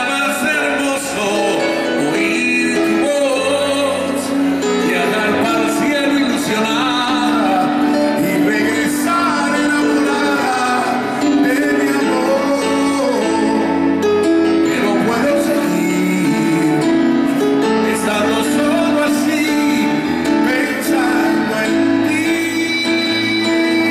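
Live band playing a slow ballad, with a man's voice singing over it.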